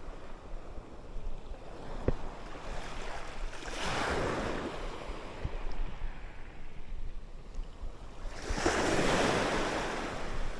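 Surf washing in: two waves break and rush up the shore, one about four seconds in and a bigger one near the end, over a low wind rumble on the microphone. A single sharp click about two seconds in.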